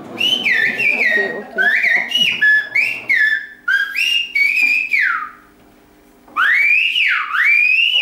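Silbo Gomero whistled language: a woman whistling through her fingers, a quick run of short rising and falling notes, then, after a short pause, two long swooping whistles that rise and fall. The whistled message asks for a camera to be handed over.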